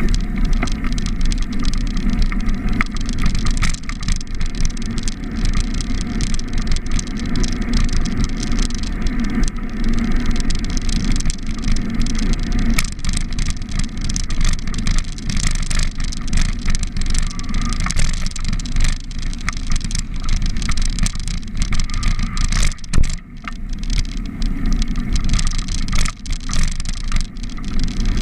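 Steady rumble of riding a bicycle: wind buffeting the camera's microphone and tyre noise on the road, with car traffic around.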